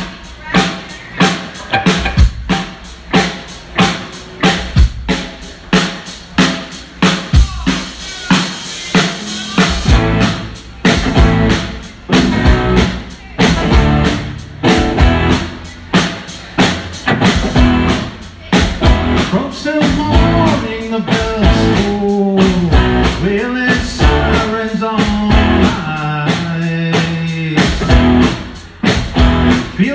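Live rock band playing through the PA: electric guitars, electric bass and a drum kit keeping a steady beat of about two hits a second. In the second half a man's voice comes in singing over the band.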